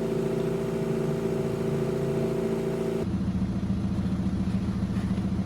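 Car engine idling steadily; the sound changes abruptly about three seconds in to a lower, more pulsing idle.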